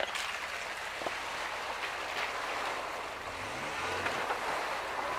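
Ford Ranger pickup ploughing into a deep muddy puddle, water splashing and sloshing around its wheels, with an engine revving up a little past three seconds in and holding there.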